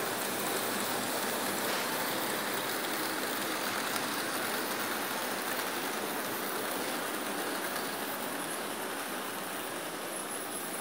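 Old Märklin H0 model steam locomotives and their coaches running on the layout's track: a steady whir of small electric motors and wheels on the rails.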